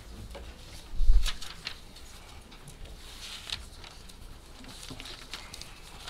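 Meeting-room handling noise: a dull low thump about a second in, then scattered small clicks and rustles of people moving and handling papers.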